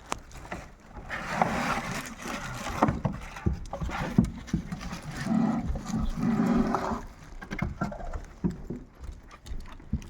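Packaging being handled while a large lighting console is unboxed: irregular rubbing and scraping with scattered knocks and clicks, busiest a second or two in and again past the middle.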